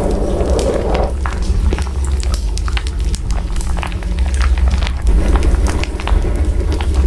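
Steady crackling: many scattered sharp clicks over a constant low rumble, with a fuller hiss in the middle range during the first second and again near the end.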